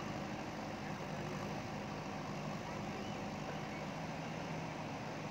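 Diesel engine of a JCB ecoXcellence backhoe loader running at a steady speed with a low hum.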